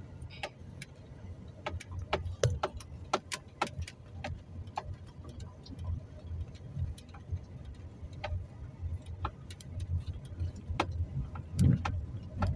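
Car driving slowly, heard from inside the cabin: a low engine and road rumble with frequent sharp clicks and light rattles, and a slightly heavier thump near the end.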